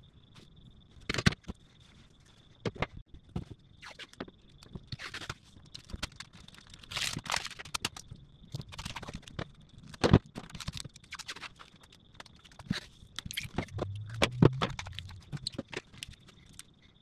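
Amber polyimide (Kapton) tape being pulled off its roll and pressed by hand onto a pack of cylindrical lithium cells: irregular crackles and scrapes with a few sharp clicks, the loudest about a second in, about ten seconds in and near the end.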